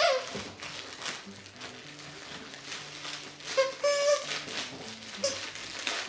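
Yellow Labrador chewing and mouthing a plush toy, with a few short pitched squeaks about four seconds in and again near the end.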